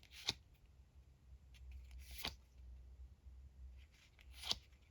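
Trading cards being flipped through by hand: three short, sharp card flicks about two seconds apart.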